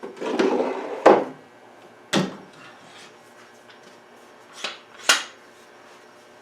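Woodworking clamps being loosened and taken off a glued wooden chair: a short scraping rattle, then four sharp knocks and clacks of the clamps against the wood.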